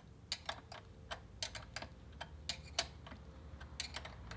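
Hand ratchet clicking in short, uneven strokes as bolts are run in to mount an alternator: light metallic ticks, often two or three close together, with brief gaps between.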